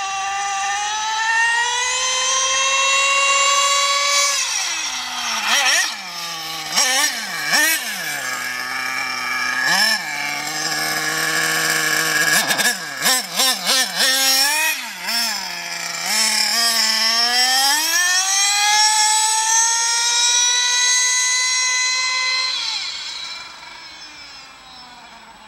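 Carson Specter 1:8 RC buggy's small nitro engine at high revs: the pitch climbs over the first four seconds, then drops and swings rapidly up and down with quick throttle blips through the middle, then climbs again and holds high before fading away over the last couple of seconds.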